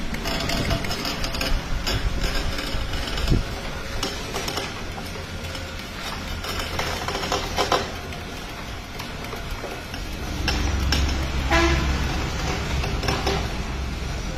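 Wooden-pestle stone oil mill (ghani) turning and crushing seeds in its mortar: a steady mechanical rumble with scattered knocks, and a deeper hum swelling about two-thirds of the way through.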